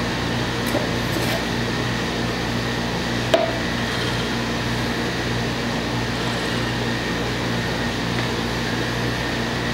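Steady mechanical room hum, like a running air conditioner, with one light click about three and a half seconds in.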